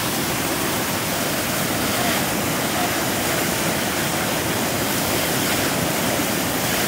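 Flash-flooded river water rushing out across the beach into the surf and breaking as a standing wave: a steady, loud rush of churning water with no letup.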